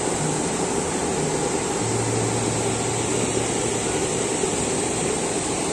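Hot-spring geyser jetting hot water and steam up from between rocks: a steady rushing hiss that does not change.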